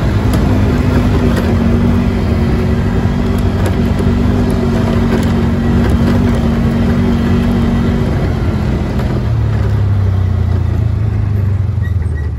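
A vehicle engine running as it drives along a gravel track, its steady hum dropping to a lower pitch about nine seconds in.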